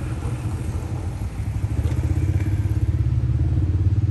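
A small engine running steadily, with a fast, even low pulse.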